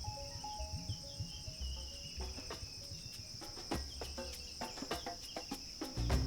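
Insects trilling steadily in the bush, one continuous high-pitched drone, with short bird chirps and scattered clicks.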